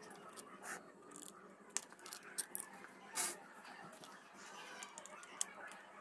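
Faint, scattered clicks and scrapes of a screwdriver prying a plastic wall switch plate loose from its box, about five or six separate clicks.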